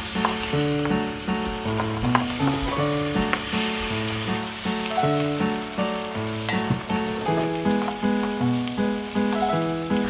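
Food sizzling as it fries in a pan, a steady hiss that stops at the end, under light background music with a plain stepping melody.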